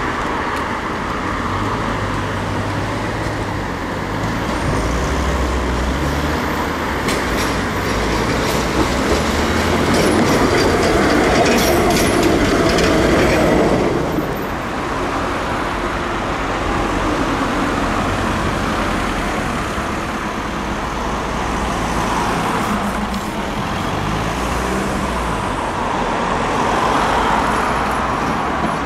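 Tatra KT4 articulated trams running on street track amid passing car traffic. One comes past close, getting louder with a run of clicks from its wheels over the rails until the sound drops suddenly about halfway through. Another tram draws near toward the end.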